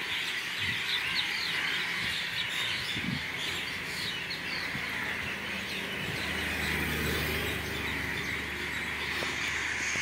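Dense chorus of many birds chirping, with short calls overlapping all the time. A low steady hum comes in about six seconds in.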